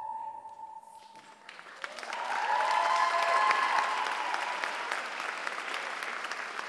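Audience applause with cheering voices, swelling about a second and a half in as the last held note of the music fades away.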